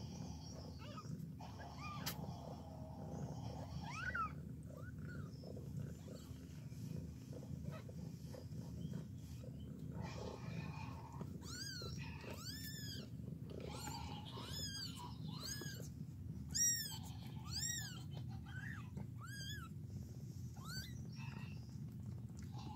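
Mother cat purring steadily while her kittens nurse. From about halfway through, a young kitten mews over and over in short, high-pitched squeaks, about a dozen in quick succession.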